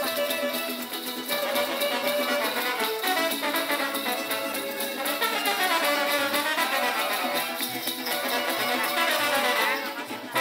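Traditional music accompanying the Purépecha Kurpites dance, with several melody instruments playing together and sliding pitches in the middle; the music dips briefly just before the end.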